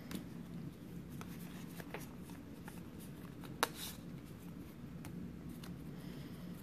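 Trading cards handled and slid through the hands: faint flicks and rustles of card against card, with one sharp card snap about three and a half seconds in, over a low steady hum.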